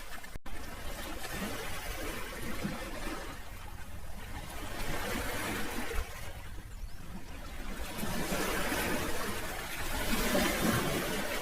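Sea waves washing in, the surf noise swelling and ebbing in slow surges over a steady low rumble. The sound cuts out for an instant just after the start.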